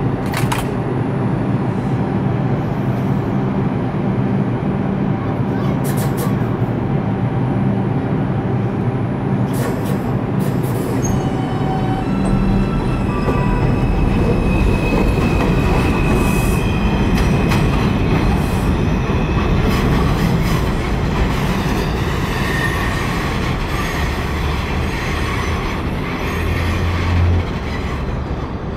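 New York City subway train running on the track: a steady rumble of wheels and motors with occasional clicks. A high wheel squeal joins about halfway through as the noise rises a little, then eases off.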